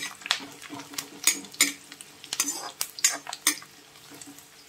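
A metal ladle scraping and clinking against a metal kadhai while onions, garlic and dried red chillies are stirred and fried in hot mustard oil, with the oil sizzling. The ladle strikes come irregularly, about two or three a second, and thin out near the end.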